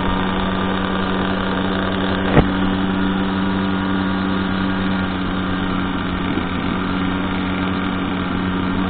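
Motorcycle engine running at a steady cruising speed, one even, unchanging engine note, with a single short click about two and a half seconds in.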